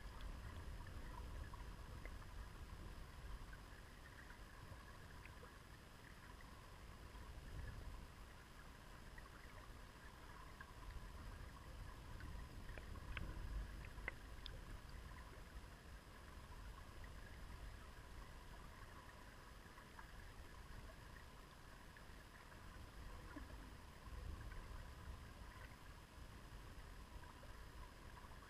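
Shallow river current heard from underwater: a faint low rumble that swells now and then, with scattered small ticks of gravel and pebbles and a thin steady hum.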